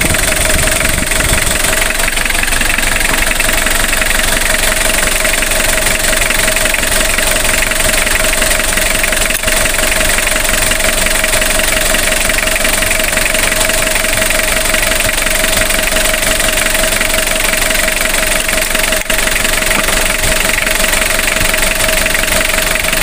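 Diesel engine idling steadily with an even clatter, its idle speed set at the fuel injection pump.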